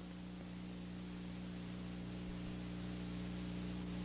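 Steady electrical hum, a few low tones held without change, under an even hiss: the background noise of an old black-and-white film soundtrack, with no other sound over it.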